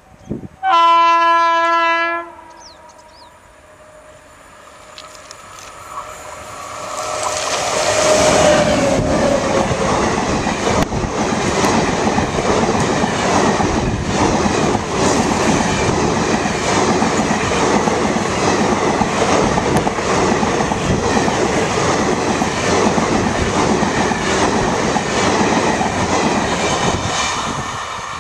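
WAP-7 electric locomotive sounds its horn once for about a second and a half as it approaches. The express train then passes close by at speed, coach wheels clattering steadily on the track, easing off near the end.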